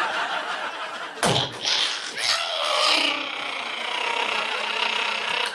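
A man making monster sound effects with his mouth into a microphone: a booming stomp about a second in, then a long, raspy, growling noise.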